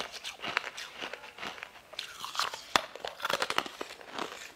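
Close-up eating sounds of starfish-shaped, sugar-coated jelly candies being bitten and chewed: irregular crunchy, crackly bites, with one sharp snap a little past halfway.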